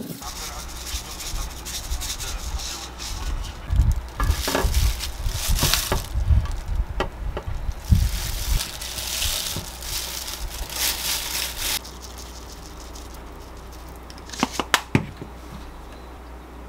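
Gloved hands tossing sauce-coated spicy whelk noodles in a glass bowl and lifting them into a dish: wet squishing and rubbing of noodles against the glass, with plastic gloves crinkling, in uneven bursts that stop about twelve seconds in. A few light clicks follow near the end.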